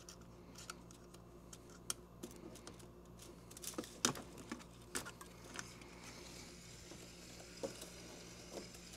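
Scattered light plastic clicks and taps of hands loading PLA filament into a 3D printer, over a steady low hum. A faint hiss comes in about six seconds in.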